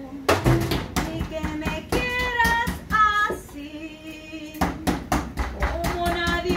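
Metal meat mallet pounding chicken breasts on a cutting board, a rapid run of flat blows that comes quickest in the second half, while a woman sings a Spanish love song over it.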